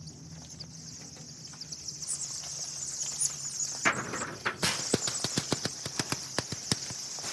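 A brooder full of broiler chicks peeping continuously in a dense high chorus. From about four seconds in, a rapid run of sharp clicks and knocks joins them and is the loudest sound.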